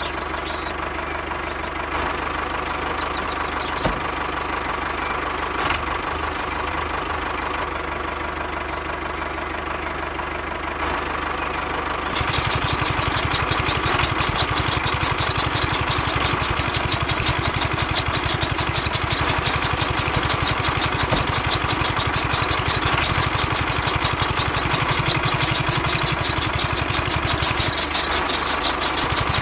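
Small motor of a miniature model tractor running steadily, driving a toy chaff cutter through a belt and flywheel. About twelve seconds in, grass is fed into the cutter and the sound grows louder, with a rapid, even chopping rattle as the blades cut it.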